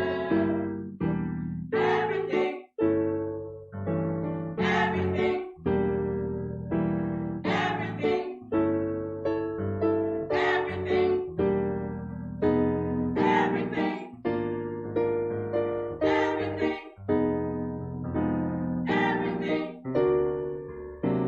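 Piano playing a hymn tune in slow chords, each struck and left to ring and fade.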